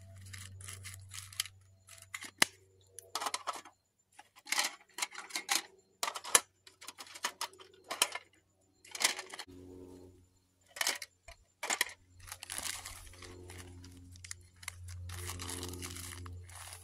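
Rustling, scraping and handling of small items as gear is packed back into a container, with a couple of sharp clicks about two and six seconds in. A low steady hum runs underneath at the start and through the last several seconds.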